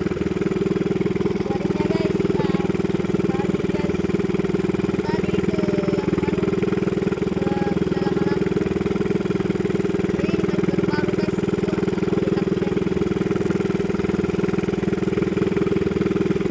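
A small fishing boat's engine running steadily at constant speed.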